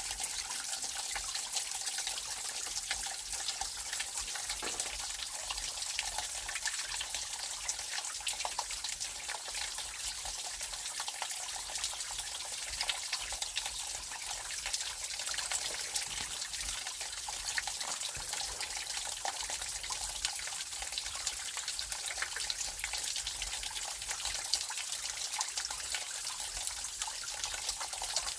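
Mountain stream water trickling and splashing steadily over rocks and ice, with many small drips and splashes.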